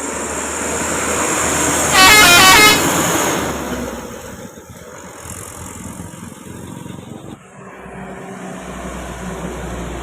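A passing heavy vehicle sounds a telolet musical horn about two seconds in: a short, loud run of quickly changing notes lasting under a second. Its engine and tyre noise rises as it comes past and then fades, and another vehicle's rumble builds near the end.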